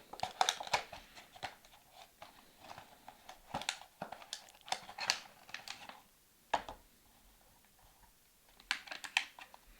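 A cardboard model-car box being opened by hand, with the plastic packaging inside handled: irregular rustling, crinkling and sharp clicks. The sounds stop for a couple of seconds past the middle, then pick up again as a quick run of clicks near the end.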